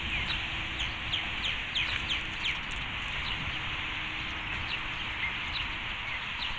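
Birds chirping in the trees: many short calls, each quickly falling in pitch, coming thick in the first half and thinner later. A steady hiss runs underneath.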